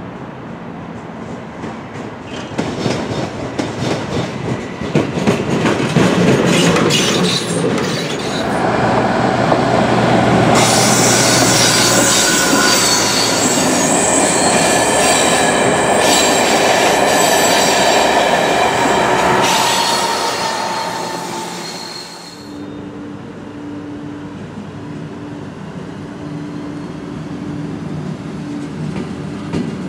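Train passing slowly on electrified track: wheels click over rail joints. Then a long stretch of loud, high wheel squeal comes from a train of hopper wagons, cutting off abruptly about two-thirds of the way through. It is followed by a quieter steady electric locomotive hum with a pulsing low tone.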